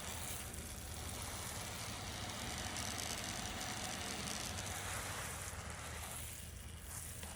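Water running steadily out of a garden hose, a steady hiss that eases slightly near the end.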